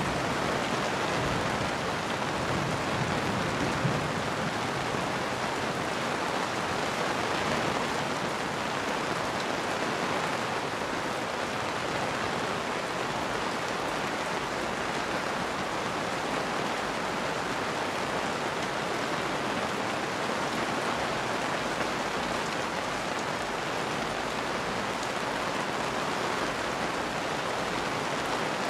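Steady rain falling, an even unbroken hiss, with a low rumble in the first few seconds.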